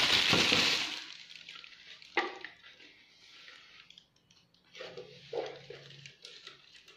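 Plastic wrapping rustling loudly for about the first second, then quieter knocks and clicks of a UPS unit's plastic casing being handled and turned over.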